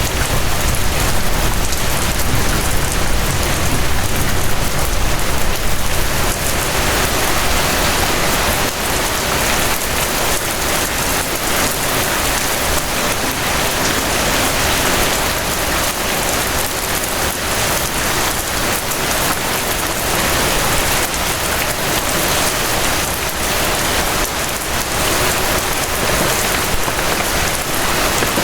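Steady rain falling, an even hiss of drops, with a low rumble underneath that eases off about six seconds in.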